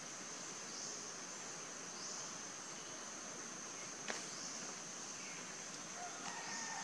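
Steady high-pitched insect drone over faint forest ambience, with one sharp click about four seconds in and a faint call near the end.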